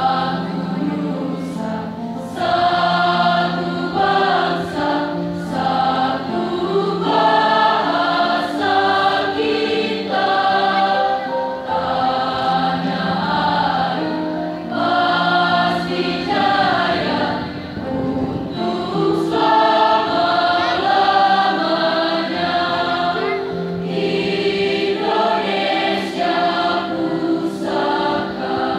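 A mixed choir of girls and boys singing a song in parts, with electronic keyboard accompaniment; the voices sing in long held phrases with short breaks between them.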